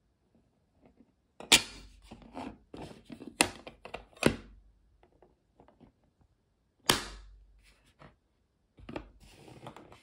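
Clear plastic one-touch magnetic card cases being handled by hand, giving four sharp plastic snaps and lighter clicks between them. Plastic scrapes and rubs near the end.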